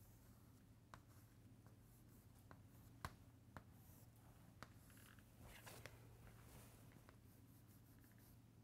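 Faint chalk on a blackboard: a few sharp taps, the loudest about three seconds in, and a short stretch of scratching a little past the middle, over a low steady hum.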